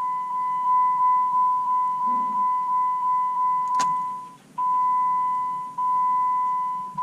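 2014 Jeep Compass instrument-cluster warning chime, a steady high tone pulsing about three times a second, then breaking briefly and sounding two longer tones: the reminder for a key in the ignition with the door open. A single click sounds a little before the break.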